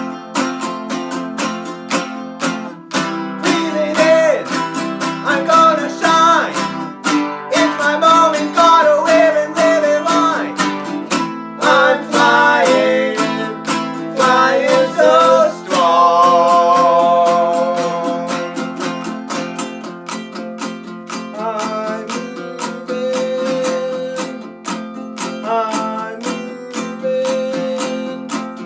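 Instrumental break in a band's song: strummed acoustic guitar with a wavering lead melody over it, busiest in the first half and settling into steadier held notes after about sixteen seconds.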